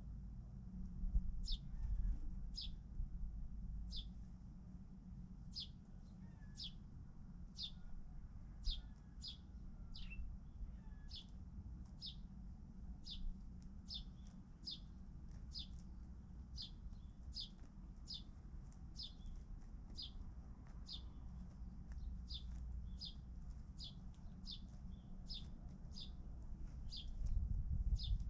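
A bird chirping: short, high chirps that fall in pitch, repeated steadily about one to two times a second, over a low steady rumble.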